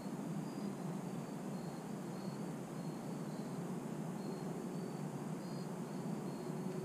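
Crickets chirping in short high pulses at irregular intervals, over a steady low outdoor rumble.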